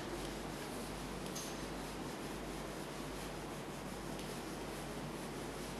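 Duster rubbing across a whiteboard as the board is wiped clean, steady and soft.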